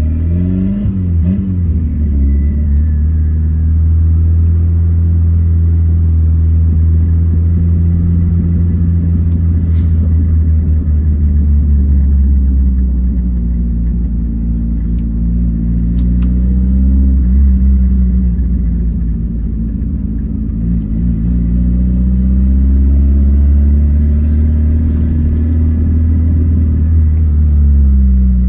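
Turbocharged, carburetted VW AP 1.8 four-cylinder engine of a square-body Gol running at low revs while driving, a deep drone whose pitch rises and falls gently several times with the throttle.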